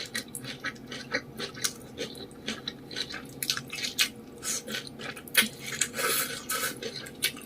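Close-miked eating sounds: chewing and quick wet mouth smacks in an irregular run, from a mouthful of spicy instant noodles with fish balls.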